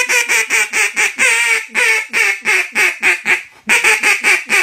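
Duck call blown in a comeback call, imitating a hen mallard: a fast, loud run of quacks, about five a second, with a short break about three and a half seconds in before the next run.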